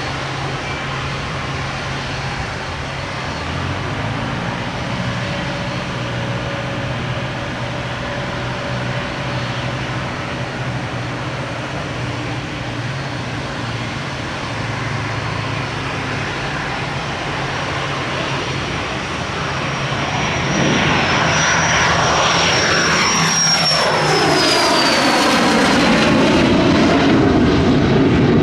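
Cessna Citation CJ2 business jet's twin Williams FJ44 turbofans at takeoff power: steady jet noise with a high whine, growing louder about two-thirds of the way through as the jet passes, the whine falling in pitch as it goes by.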